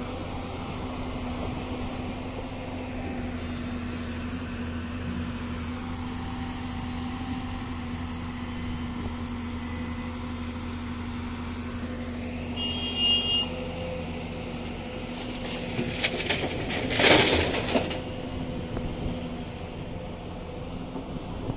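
Hyundai 215 excavator's diesel engine running steadily under load while it digs gravel from the riverbed. About three-quarters of the way through, a loud rush and clatter of stones and water as the bucket unloads into the tipper truck.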